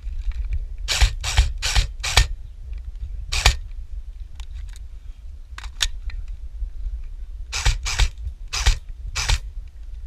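Airsoft gun firing single shots, sharp snaps in two quick groups of four, the first about a second in and the second near the end, with a few lone shots between, over a steady low rumble on the microphone.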